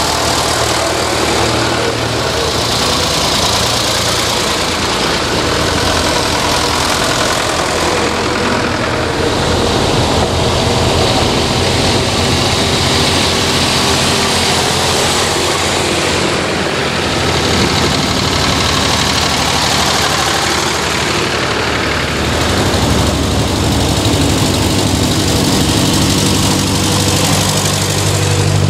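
Vintage tractor engines running as a procession of old tractors drives by one after another, the engine sound swelling three times as each tractor passes close.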